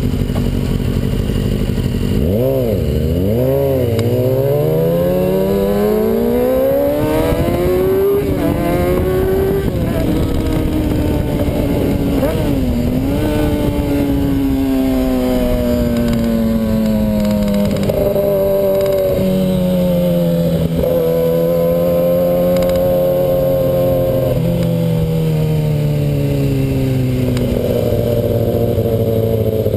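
Inline-four sport bike engine heard from the rider's seat: a few quick throttle blips about two seconds in, then it pulls away with the revs climbing for several seconds before easing off into a steady cruise. The pitch steps up and down with throttle and gear changes near the end.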